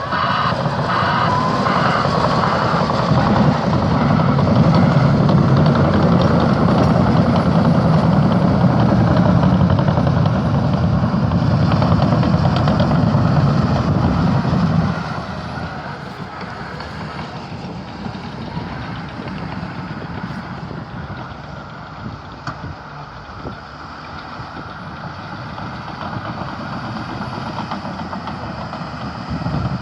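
Heavy diesel engine of a Caterpillar D6T bulldozer running hard, with a reversing alarm beeping for the first couple of seconds. About halfway through the engine sound drops sharply to a quieter, steady running.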